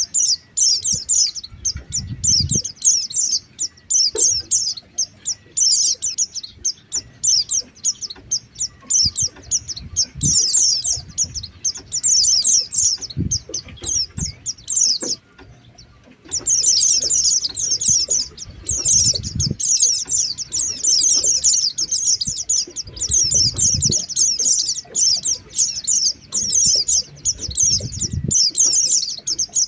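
Rapid, dense high-pitched twittering chirps of white-eyes (pleci), a lure call used to attract the birds. The calls break off for about a second midway, then resume. Occasional low thuds sound underneath.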